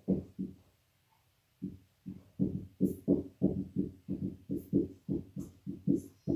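Dry-erase marker writing on a whiteboard: a few short strokes, a pause of about a second, then a steady run of quick strokes, about four a second.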